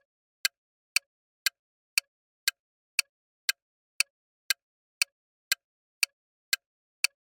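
Clock-tick sound effect of a quiz countdown timer: crisp, even ticks, two a second, with silence between them.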